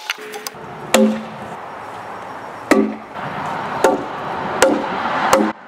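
A mallet driving the wooden legs of a shaving horse into holes bored in the log bench: five hard wooden knocks, each with a short ring, coming closer together toward the end.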